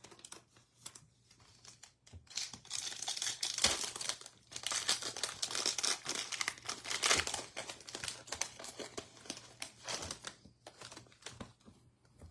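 Foil wrapper of a Panini Contenders football card pack being torn open and crinkled by hand, a crackling, rustling sound that is loudest in the middle and dies down near the end.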